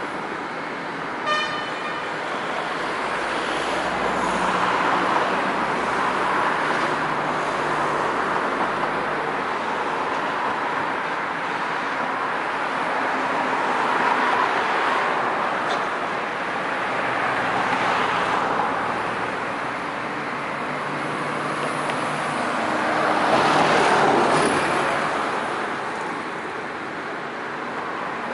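Steady wash of distant train and road traffic noise, swelling and fading as vehicles pass, loudest a few seconds before the end. A short toot sounds about a second in.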